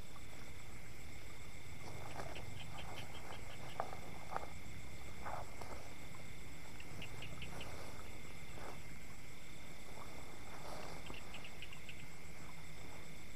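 Insects calling steadily in high, unbroken tones, with a short trill of quick clicks repeating three times about four seconds apart. A few soft knocks and rustles of handling sound in the first half.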